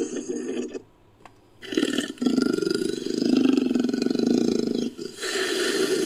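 Made-up Orthoceras creature call, built from pig and dinosaur sound-effect recordings: rough, rasping, low-pitched animal roars. One roar cuts off just under a second in. After a short pause a long roar of about three seconds follows, and another begins near the end.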